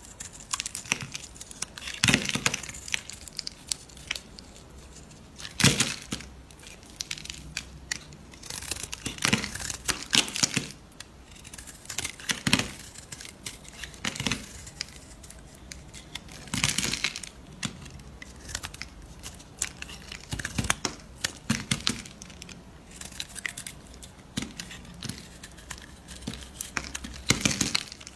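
Utility-knife blade shaving and carving a bar of soap: groups of crackling, scraping strokes as flakes break away, coming every two to three seconds.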